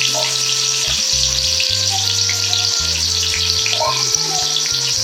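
Sliced onions frying in hot oil in a pot: a steady sizzle with small crackles, and background music.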